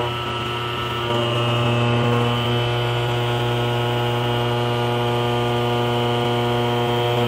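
CNC milling machine's spinning cutter machining the edge of a steel block: a steady droning hum made of several even tones, a little louder from about a second in.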